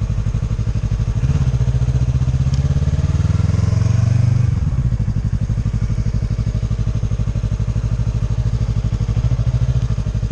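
Motorcycle engine running with a quick, even pulse, the revs and level rising about a second in and dropping back shortly before five seconds.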